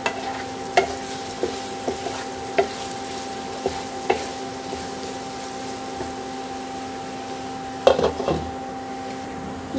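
A spatula scraping and knocking against a non-stick kadai as spiced taro-root pieces are stirred while frying, a scrape or knock every half second to a second. A steady hum comes from the induction cooktop. About eight seconds in, a glass lid clatters onto the pan.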